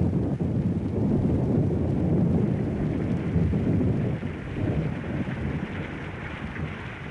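Thunder rumbling, with rain falling; the rumble is heaviest for the first four seconds or so, then eases off.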